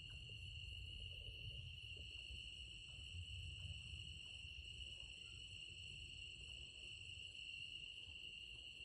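Crickets and other night insects chirring in a steady, unbroken high-pitched chorus, faint, with a low rumble underneath.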